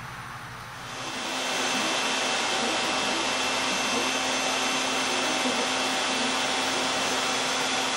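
A power tool's electric motor spins up about a second in and then runs steadily: a loud, even whirring rush with steady tones riding on it.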